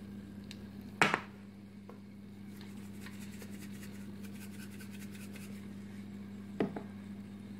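Salt and pepper being shaken over eggs cooking in an electric multi cooker: a sharp knock about a second in and a softer one near the end, with faint fine ticking in between, over a low steady electrical hum.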